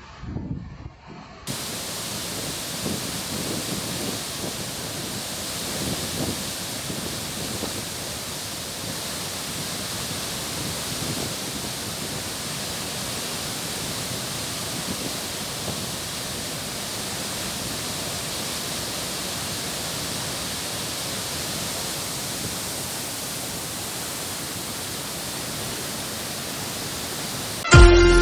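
A waterfall in spate after heavy rain, water pouring down in a steady, even rush. It begins at an abrupt cut about a second and a half in; plucked-string music starts at the very end.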